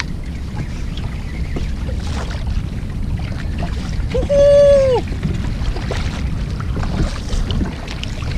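Steady wind and water noise around a kayak at sea, with a single high, held tone about a second long midway through.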